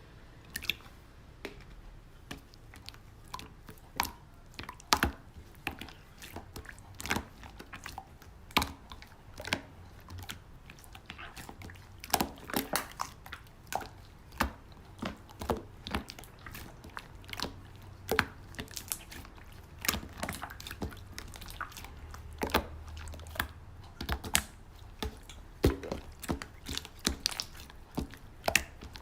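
Slime being squished and worked by hand, making irregular sharp clicks and pops.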